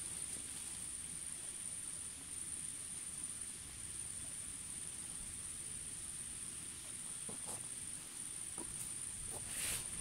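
Insects chirring: one steady, high-pitched drone. A few soft rustles and taps from the tent being handled come near the end, the loudest just before it finishes.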